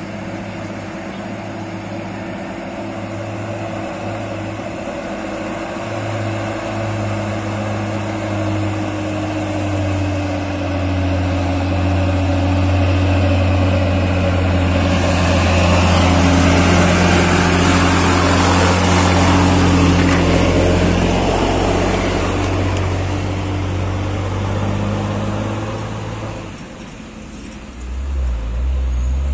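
Loaded Hino diesel truck approaching on a gravel road, its engine running steadily and growing louder, with tyre noise on gravel at its loudest as it passes close about halfway through. The sound fades near the end, and a different low engine sound from another truck takes over.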